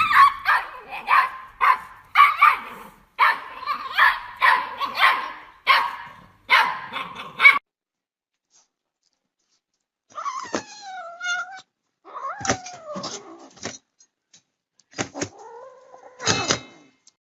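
A dog barks rapidly and repeatedly for several seconds. After a short silence, a cat gives three drawn-out meows that slide in pitch.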